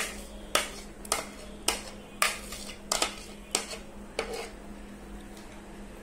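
Metal spoon knocking against the rim of a blender jar, about eight sharp taps roughly every half second, knocking out the last of the blended mango purée; the taps stop about four seconds in. A faint steady hum sits underneath.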